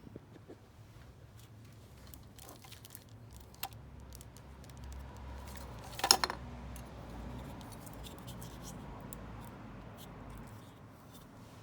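Scattered light clicks, with a short cluster of louder clicks about six seconds in, over a faint low rumble.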